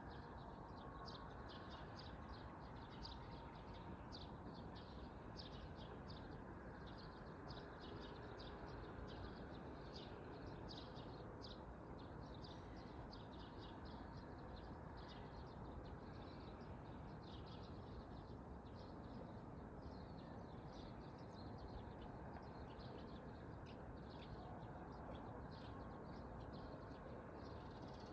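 Small birds chirping in quick, short, high notes all through, over a steady low background rush of outdoor noise.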